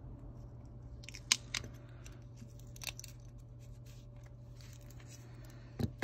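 Scattered light clicks and taps from an iPhone 8 and small tools being handled on a silicone repair mat, with a few sharp clicks about a second in and near three seconds and a duller knock near the end, over a steady low hum.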